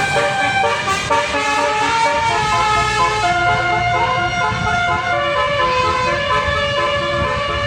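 Bus basuri (telolet) musical horn playing a tune: several horn notes sound together and step from pitch to pitch, over the low rumble of engine and traffic.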